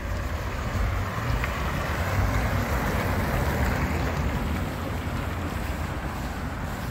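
Street traffic: a car passing on the road, its tyre hiss swelling in the first half and fading, over a steady low rumble of wind on the microphone.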